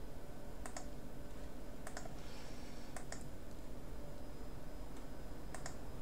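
Four sharp computer mouse button clicks, spread out about a second apart with a longer gap before the last, over a steady low background hum.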